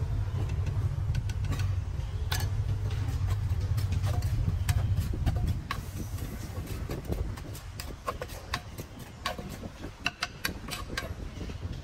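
A wooden pestle knocks and pounds in a large earthenware mortar, mixing papaya salad, as a series of uneven sharp knocks that come thickest in the second half. Under the first half there is a steady low rumble that drops away about halfway through.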